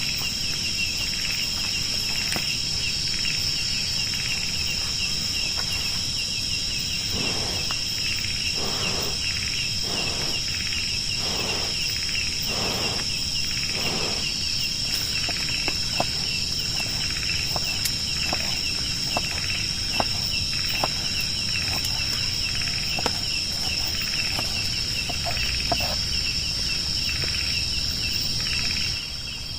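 Steady high-pitched chorus of crickets or similar insects. Partway through, another animal gives a run of about ten short calls, and light clicks are scattered through the later part.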